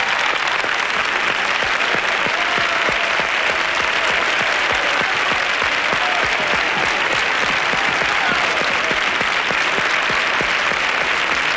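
Studio audience applauding steadily after a song ends, with a few cheers rising above the clapping.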